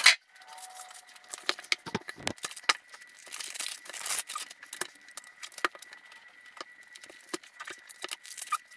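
Paper being handled: a large manila envelope and the pages of a ring binder of plans rustling and sliding, with scattered small clicks and knocks. A single sharp knock at the very start.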